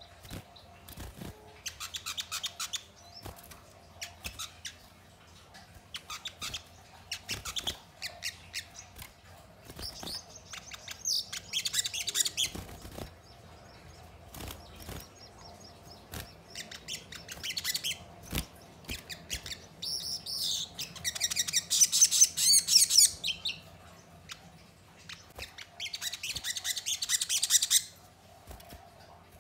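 Caged sogon twittering in repeated bouts of rapid, high chirping notes, with short pauses between bouts and the loudest bout past the middle. Scattered sharp clicks fall between the bouts.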